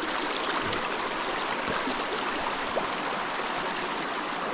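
Shallow river water rushing steadily over rocks at a crossing.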